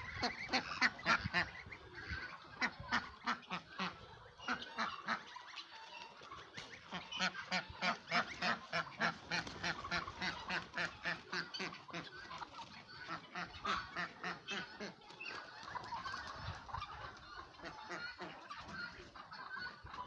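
Farmyard fowl calling: a long run of short, harsh honking calls, about four a second, that loosens into scattered calling about halfway through.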